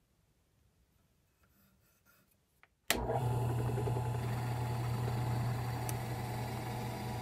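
After about three quiet seconds, a drill press starts suddenly and runs steadily with a low motor hum while its bit bores into a wooden chair-leg blank.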